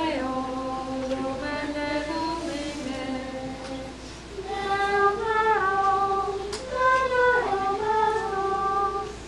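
Voices singing a sung chant of the Mass, unaccompanied, in long phrases of held notes that step and slide between pitches, with a short breath about four seconds in.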